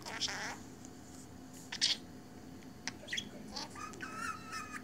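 Pet budgerigar chattering: short chirps about a quarter second in and again near two seconds, then a run of warbling calls in the last second and a half.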